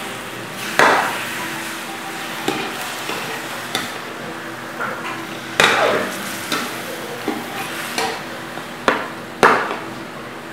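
Metal spoon stirring chicken pieces in a metal wok, scraping and clanking against the pan now and then, over a steady sizzle of the meat frying in oil.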